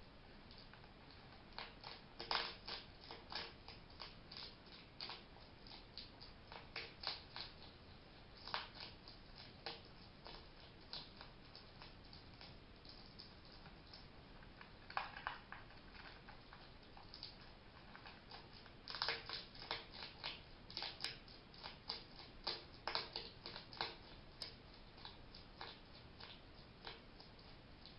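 Hedgehog making short, sharp sneeze-like huffs in irregular clusters, with one run of them a couple of seconds in and a denser run in the last third. The uploader came to read these sneezing sounds as a sign that the hedgehog is happy, not sick.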